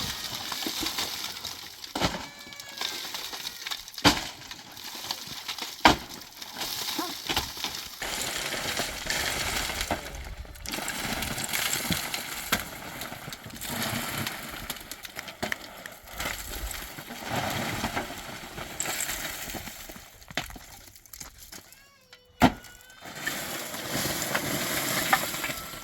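Building work: scraping and rustling of materials with a few sharp knocks, the loudest about six seconds in and a last one near the end. These are typical of roof repair work.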